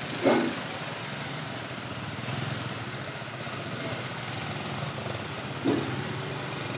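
Small engines running in slow street traffic, a motorcycle and a pickup truck close ahead, over a steady background of street noise. Two short, louder sounds stand out, one just after the start and one near the end.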